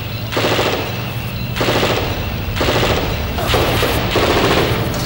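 Repeated short bursts of automatic gunfire, about five in all, each lasting roughly half a second, over a low steady hum.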